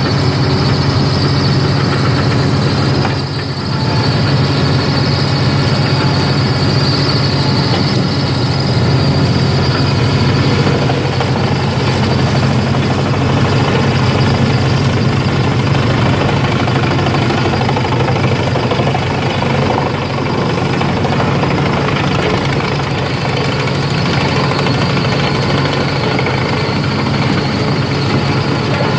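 Bentele BBT 650 drum wood chipper running under its onboard engine with a steady heavy drone, chipping brush and branches pulled in by its spiked feed roller. Its loudness dips briefly about three seconds in, then runs on steady.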